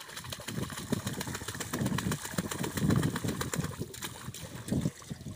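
Muddy water sloshing and splashing as a large metal basin is worked through shallow water, in an irregular, uneven rush that is loudest in the middle.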